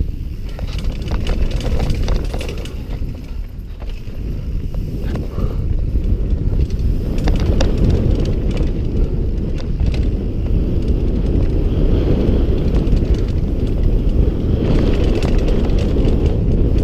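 Mountain bike rolling fast down a dirt trail, heard from a helmet camera: a steady low rumble of wind on the microphone and tyres on dirt, with frequent sharp clicks and rattles from the bike over bumps. It grows louder about seven seconds in.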